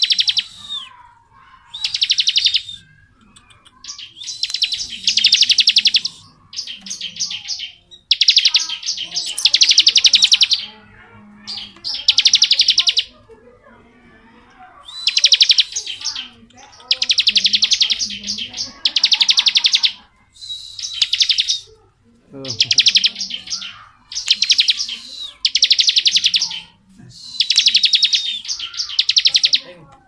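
Bar-winged prinia (ciblek) singing in the 'ngebren' style: long, very fast buzzing trills in bursts of one to two seconds, repeated about every two seconds with short pauses between.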